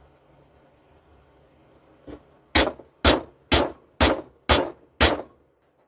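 Hammer peening the rivets that hold a replacement sprocket nose tip onto a chainsaw bar: one light tap, then six hard metallic blows at about two a second.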